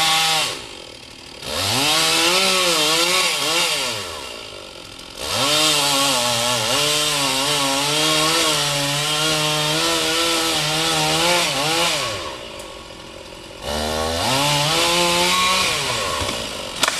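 Chainsaw engine revving in four full-throttle bursts as it cuts the dead ash tree. Each burst rises in pitch and holds, and the longest runs about seven seconds. Between bursts the engine drops back to a quiet idle.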